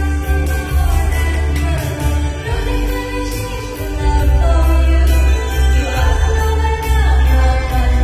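A song being performed: a singing voice carrying a melody over a backing track with a strong bass and a steady beat.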